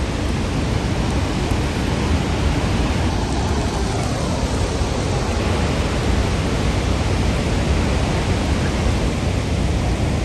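Niagara's Horseshoe Falls: the steady, dense rush of a huge volume of falling water, heaviest in the low end, with no break.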